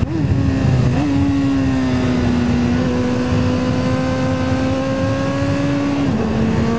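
BMW S1000RR inline-four engine running hard at high revs over a steady rush of wind and road noise. The pitch jumps briefly at the start and again about a second in, then holds nearly level, climbing slightly, and steps down a little near the end.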